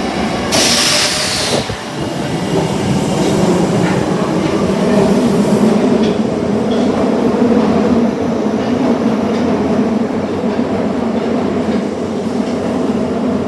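Osaka Metro Tanimachi Line 22 series subway car running, with a steady low hum that builds over the first few seconds. A short burst of hiss comes about half a second in.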